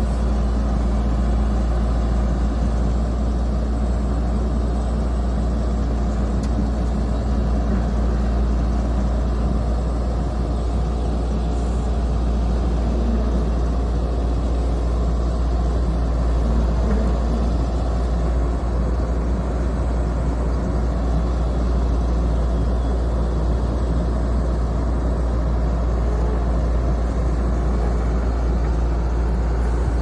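Caterpillar 311 hydraulic excavator's diesel engine running at a steady low hum while its boom lifts a log slab hung on a chain and tips it up on end.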